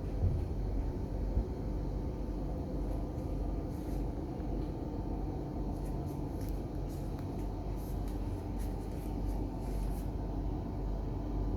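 Steady low drone of a passenger boat's engines, heard inside the cabin while the boat is under way.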